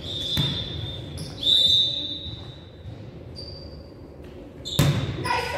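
Basketball game in a gym: thuds of the ball bouncing about half a second in and again near the end, with a long, high-pitched squeal about a second and a half in.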